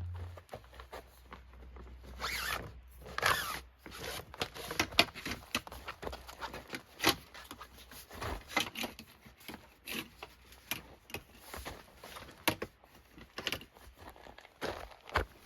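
Irregular rustling and clicking handling noises, with two longer rasping sweeps about two and three seconds in; a low hum cuts off about half a second in.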